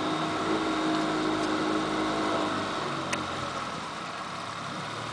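Small outboard motor running steadily at low throttle, a little quieter in the second half, with one sharp click about three seconds in.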